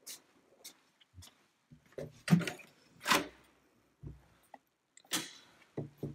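A wooden interior door being opened and passed through: scattered soft knocks and steps, with two louder clunks of the handle and door about two and three seconds in.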